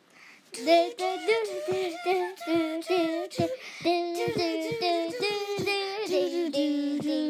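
A high voice singing a tune in held notes with short breaks, starting about half a second in.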